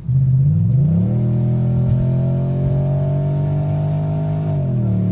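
A V8 car engine accelerating under load. Its pitch climbs steadily through a gear, then drops quickly at about four and a half seconds, as at an upshift, and holds there. The gearshift is described as 'medio lenta' (somewhat slow), typical of an automatic gearbox.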